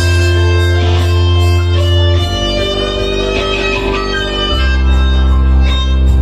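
Band music led by electric guitar over held bass notes, which change about two seconds in and again near the middle.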